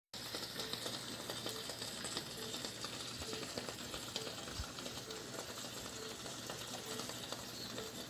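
Ford Fusion V6 engine running at idle, a steady hiss with light irregular ticking over it; the engine is overheating, vapour rising from the coolant side of the bay.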